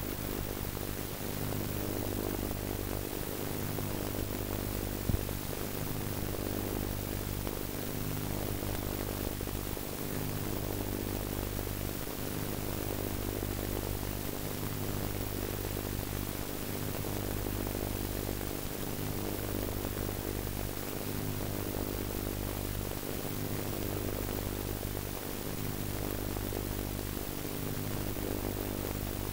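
Steady hiss with a low electrical hum and buzz: videotape playback noise from a tape whose picture has lost tracking. One short click about five seconds in.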